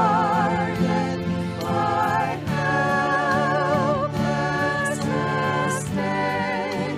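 Worship music: singing with instrumental accompaniment, a lead voice holding long notes with wide vibrato.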